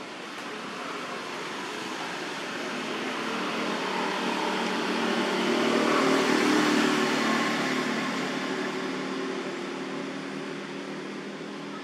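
A motor vehicle passing by: steady engine and road noise that swells to its loudest about midway and then fades away.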